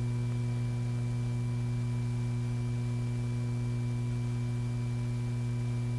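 Steady hum, a low buzz with a few fainter higher tones over it, unchanging throughout.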